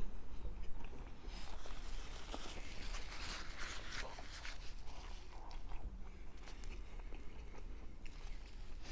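Close-up biting and chewing of a chilaquiles torta, a bolillo roll filled with fried breaded milanesa and salsa verde chilaquiles: irregular wet chewing with crisp crackles, busiest a second or two in.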